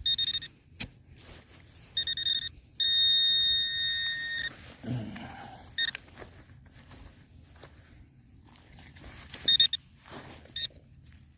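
Handheld metal-detecting pinpointer giving its steady electronic alarm tone in several bursts, the longest lasting about two and a half seconds, as it is held over a target in the dig hole. Faint knocks and scraping of soil come in between.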